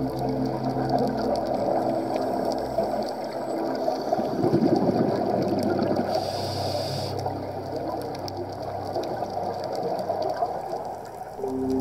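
Underwater sound of a scuba diver breathing through a regulator: a bubbly surge of exhaled air about four seconds in and a short hiss of inhaling about two seconds later, over a steady wash of water noise with faint crackling clicks.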